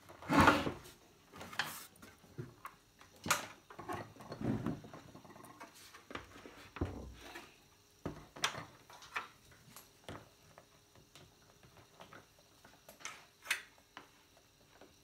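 Irregular knocks and clicks of a plastic television cabinet and its parts being handled and set down on a wooden bench. The loudest knock comes about half a second in.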